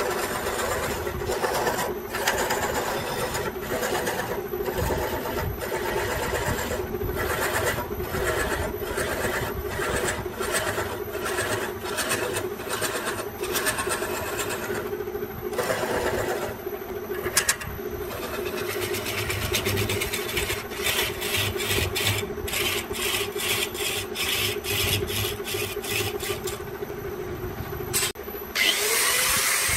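Wood lathe running with a steady motor hum while a hand-held turning tool scrapes and cuts the spinning bamboo, with irregular ticks and chatter from the cut. Near the end the cutting stops and a second power tool, an angle grinder, whirs up.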